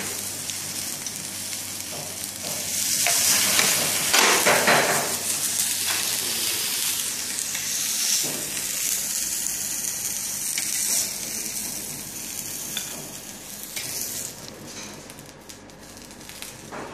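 Tomato slices sizzling in a hot steel frying pan, a steady hissing sizzle that dies down over the last few seconds.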